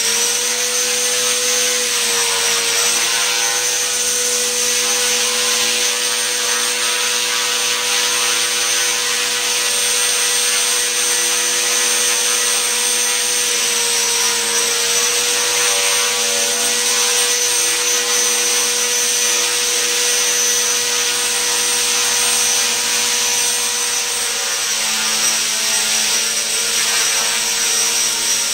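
Align T-Rex 450 Sport electric RC helicopter hovering: the motor's high whine and the spinning rotor run at a steady pitch, still rising for the first couple of seconds and then holding with only small wavers.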